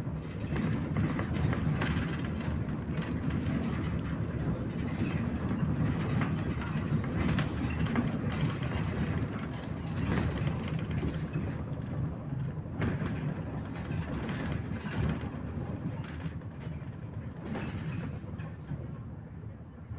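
MAZ-103 city bus under way, heard from inside: a steady low engine and road rumble with frequent rattles and knocks from the body, growing quieter near the end.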